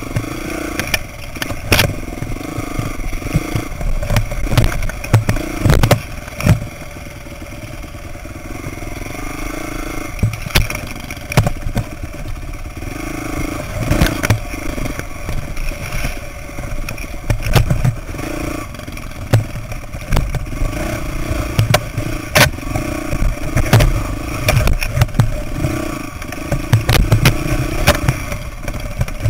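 Dirt bike engine running at varying throttle, its note rising and falling, while the bike rattles over a rocky trail with frequent knocks and clatter from the chassis and suspension.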